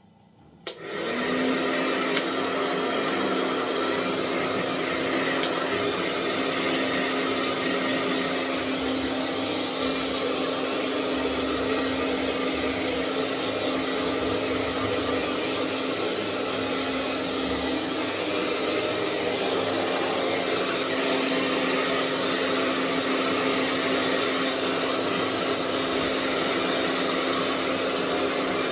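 Hair dryer switching on about a second in, then running steadily: a rush of blown air with a constant motor hum.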